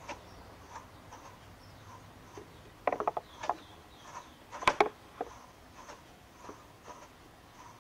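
Wooden swing-type wool picker being rocked back and forth to tease fleece: light clacks, with two louder bursts of rattling knocks about three seconds and about four and a half seconds in.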